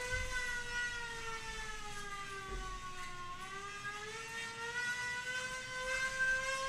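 Tornado siren wailing with an echoing tone, its pitch sliding slowly down to a low point about halfway through and then rising back.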